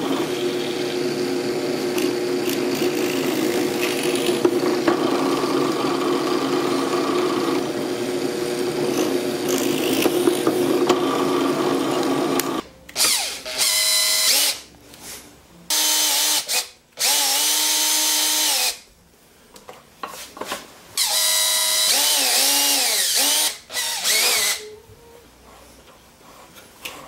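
Drill press motor running steadily while holes are drilled through wooden bars for the jig's pivot points. After about halfway, a power drill runs in several bursts of a few seconds, its pitch rising and falling with the trigger.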